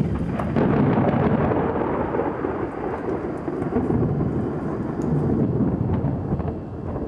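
Thunder rumbling on and on over falling rain, swelling about half a second in.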